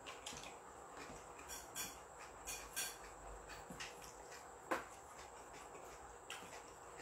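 Faint, scattered clicks and taps of a person eating by hand, fingers picking at fish on a wooden tray, with one sharper tap about two-thirds of the way in.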